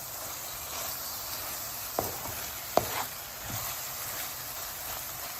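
Sliced onions and jalapeno frying in olive oil in a pan, a steady sizzle, with a few sharp clicks about two and three seconds in.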